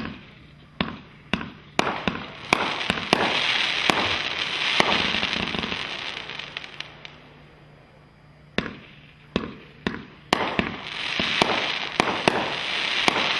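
Red Rhino 'Altered Reality' 500-gram aerial repeater cake firing in two volleys: each starts with a quick run of sharp launch reports, then several seconds of dense crackling as the effects break overhead.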